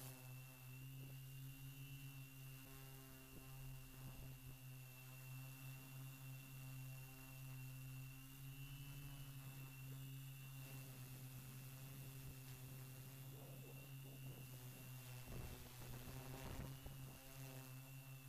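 Multirotor drone's electric motors and propellers humming steadily, with a thin high whine above the hum; faint overall.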